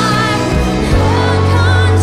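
Live contemporary worship song: a woman singing lead over a full band with drums, electric guitar and keys. A strong, steady low bass note comes in about a second in.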